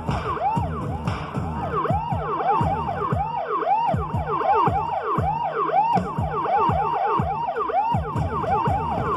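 Siren sound patch on a Yamaha MOXF8 synthesizer keyboard, played as quick overlapping rise-and-fall pitch sweeps, several a second, over a steady low tone.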